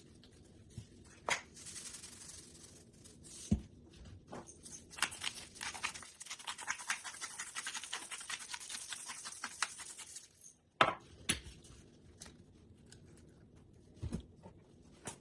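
Kitchen handling noises during food preparation: scattered clicks and knocks, with a dense run of rapid scratching or rustling from about five to ten seconds in.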